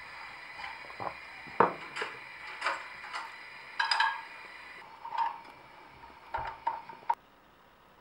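Metal cutlery clinking and knocking against a plate: a run of light, uneven clinks, some ringing briefly, that stops abruptly near the end.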